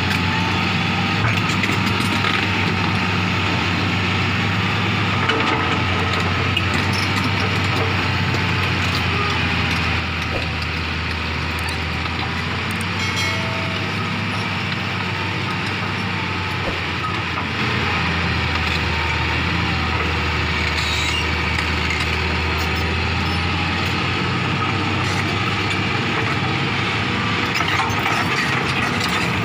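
Hitachi crawler excavator's diesel engine running steadily as the machine tracks up a pile of loose earth, with squeaking and clatter from its steel tracks. It drops a little in level for several seconds midway.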